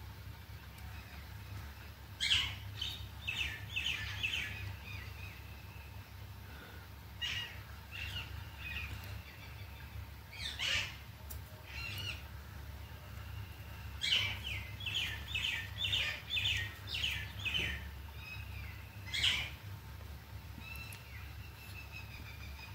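Birds chirping: several bursts of quick repeated chirps, a few notes a second, over a steady low hum.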